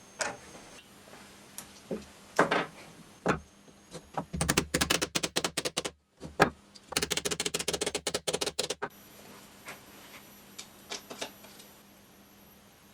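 Sharp mechanical clicking: a few single clicks and knocks, then two rapid runs of clicks about ten a second, each lasting under two seconds, then a few faint clicks.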